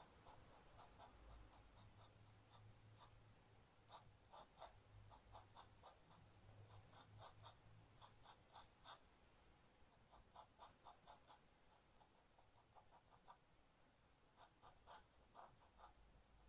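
Faint scratching of a dip pen's metal nib on paper: quick short strokes heard as clusters of light ticks, with brief pauses between them.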